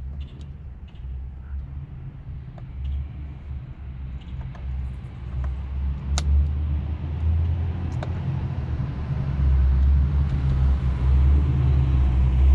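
Deep engine rumble of an approaching car, growing steadily louder and loudest near the end: the Cadillac CTS-V's V8 coming back. A few light plastic clicks from interior trim being pried sound in the first half.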